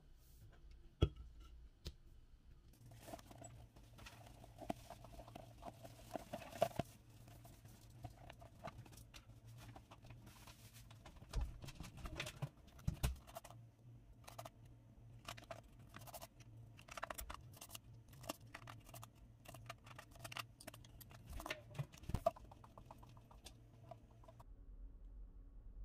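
Unboxing handling noises: scattered taps, clicks and light knocks as a cardboard gift box and its small lidded tins are opened and moved about on a stone countertop, with a faint low hum underneath.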